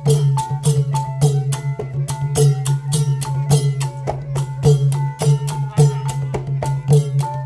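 Cambodian chhay yam ensemble playing: long goblet drums under a fast, steady beat of sharp clicking strikes, with short ringing notes.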